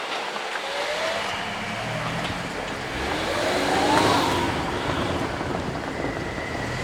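Road traffic at a railway level crossing: car engines running, one revving up as it pulls away and passes about four seconds in.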